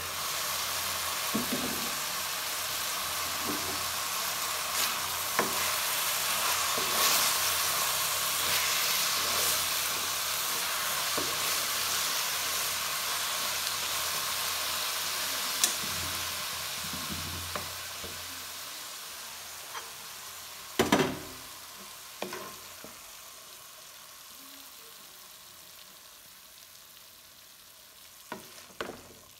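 Chopped mustard greens frying in an uncovered pan: a steady sizzle that starts suddenly as the lid comes off and slowly fades over the second half. A wooden spatula stirs and knocks against the pan now and then, with a louder clatter about two-thirds of the way through and again near the end.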